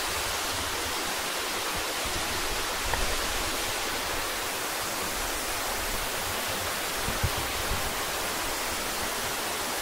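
Waterfall's water rushing steadily in an even, unbroken hiss. A short low knock comes about seven seconds in.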